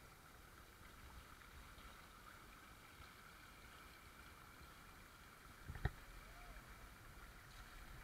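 Faint, steady rush of a shallow rocky stream, with a single sharp knock a little under six seconds in.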